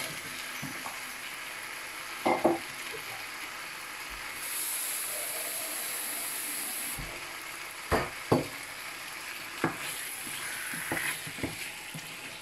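Chicken curry sizzling in a nonstick frying pan as cubed potatoes are added and stirred in with a wooden spatula, with a few sharp knocks of the spatula against the pan.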